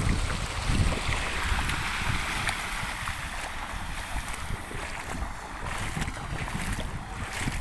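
Water rushing and splashing steadily around a vehicle driving through standing water, with wind buffeting the microphone in low rumbles.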